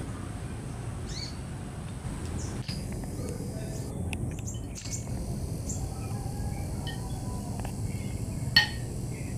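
Faint bird chirps over a steady low background rumble, with a sharp clink of a metal spoon against a plate near the end.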